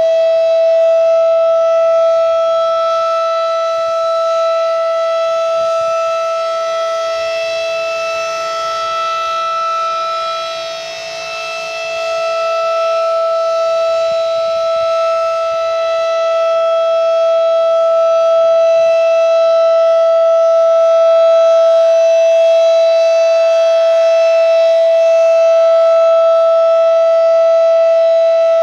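Tornado warning siren sounding one steady, loud tone at full pitch during a test, already past its wind-up; its loudness dips briefly a little before the middle, then swells again.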